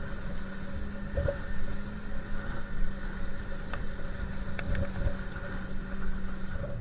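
A steady engine hum over a rumbling noise.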